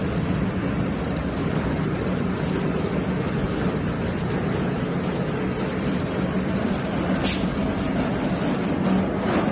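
Automatic flip mattress tape edge sewing machine running, its sewing head moving along the mattress edge with a steady mechanical whir and hum. Two short hisses come near the end.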